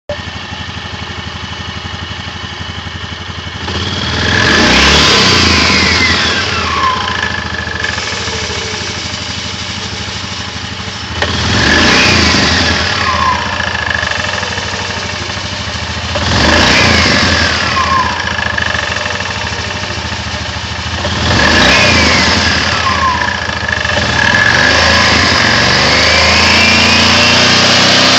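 A vehicle engine driving a CVT variator is revved four times; after each blip the pitch falls away over a couple of seconds, and a steady whine sounds during the revs. Near the end the engine is held at higher revs. This is presented as a knock in the variator.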